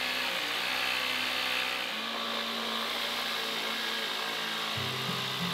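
Festool jigsaw running steadily, its blade sawing through a solid oak desktop to cut an opening.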